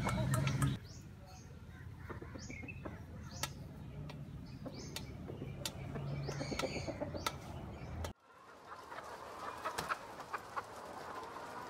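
Hens clucking while pecking feed from a stainless steel bowl, their beaks clicking sharply against the metal. The sound drops out abruptly about eight seconds in, then resumes with a steady hiss and more pecking clicks.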